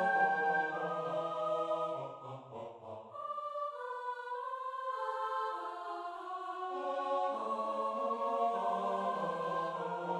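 Four-part a cappella choir singing close chromatic lines, the voices entering one after another. The low voices drop out about three seconds in and come back about seven seconds in.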